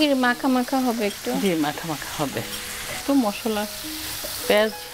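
Tuna kofta balls sizzling in a frying pan of spiced onion masala, stirred with a wooden spatula in quick repeated strokes that scrape against the pan.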